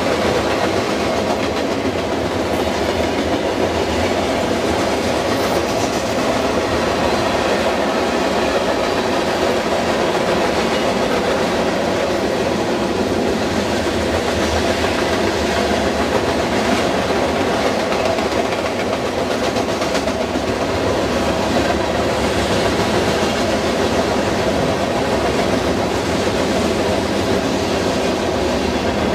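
Freight cars of a mixed freight train rolling past at speed: a steady rumble and rattle of steel wheels on the rails and the cars' bodies.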